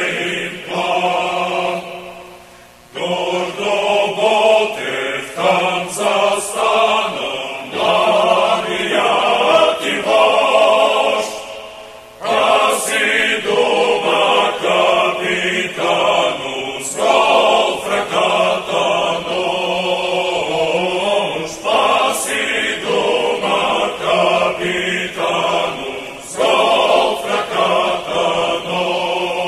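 A choir singing a slow chant as background music, in long phrases broken by brief pauses.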